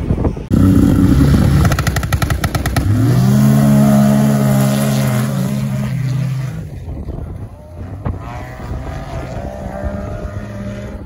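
Two racing snowmobiles at full throttle, accelerating side by side up a ski hill. The engine noise comes in suddenly, holds a loud steady high-rev note for a few seconds, then fades as the sleds pull away up the slope.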